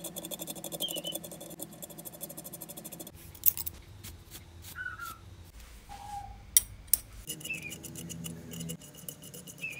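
Screwdriver working the screws in the metal frame of a Yamaha NS-1000M beryllium dome driver: a fast run of small clicks in two spells, one at the start and one near the end, with short squeaks and a few sharp metal taps in between.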